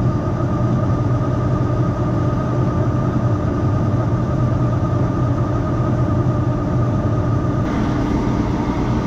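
Large diesel farm machine's engine running steadily at constant speed, a deep drone with a thin steady whine above it.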